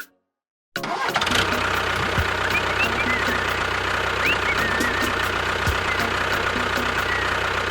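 An engine starts running about a second in, after a brief silence, and keeps going steadily with a low hum and an even ticking rhythm. A few short high chirps are heard over it.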